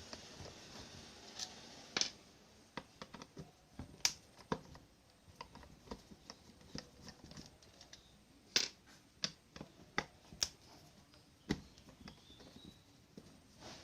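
Irregular sharp clicks and light knocks of small tools and metal parts being handled during the repair of an electric hand planer. They come singly or in quick clusters, with a few louder knocks in the second half.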